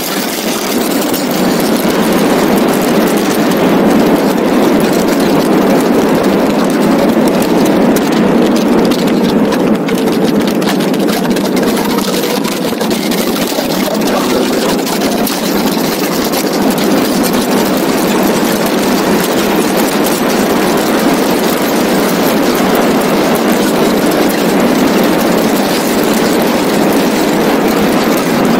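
Donkervoort D8 GTO RS's turbocharged Audi five-cylinder engine running hard on track, with a steady rush of wind over the open cockpit. It is loud and continuous, with a faint shift in engine pitch partway through.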